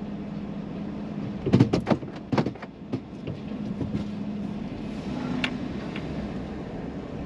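Pickup truck engine idling, heard from inside the cab as a steady low hum, while the truck pulls slowly forward. A quick cluster of loud knocks and clicks comes about a second and a half in, with one more click a few seconds later.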